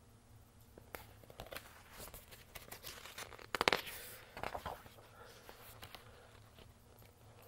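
Pages of a picture book being handled and turned: faint paper rustling and crinkling, loudest about halfway through.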